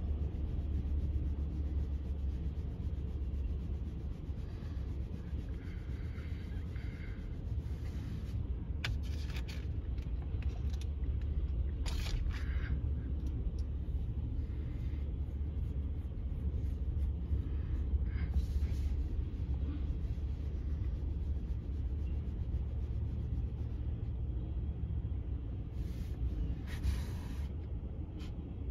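Freight train of tank cars rolling past: a steady low rumble of steel wheels on rail, with a few brief scraping noises now and then.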